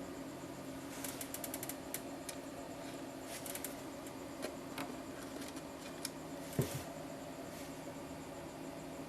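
Small sharp clicks and taps, some in quick runs of several, with a louder soft thump about two-thirds of the way in, over a steady low hum.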